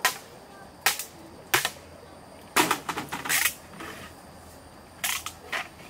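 Bamboo being knocked and struck: a series of sharp, hollow cracks. Single strikes come near the start, about a second in and at one and a half seconds, then a quick run of knocks around the middle and two more near the end.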